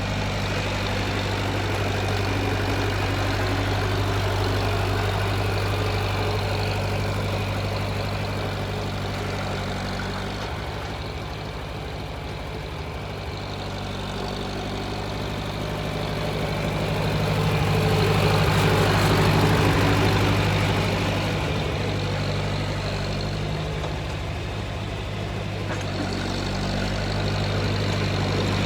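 Tractor engine running steadily while pushing snow, swelling louder for a few seconds about two-thirds of the way through before settling back.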